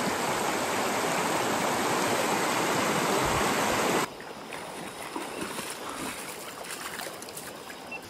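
Shallow river rushing over rocks, a steady loud wash of water. About four seconds in it cuts off abruptly to a much quieter background with faint scattered ticks.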